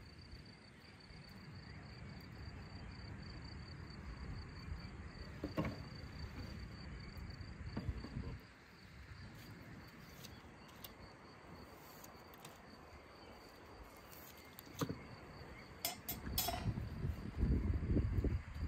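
Insects chirring in a steady, high, faintly pulsing trill, with a few sharp clicks of metal kebab skewers being handled as grilled meat is slid off them.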